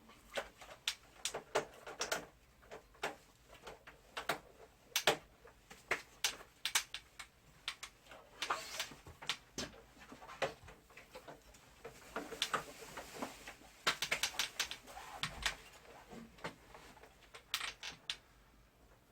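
Irregular clicks and taps of hard plastic parts and small screws being handled while a wall-mounted air conditioner is taken apart, in quick clusters around the middle and thinning out near the end.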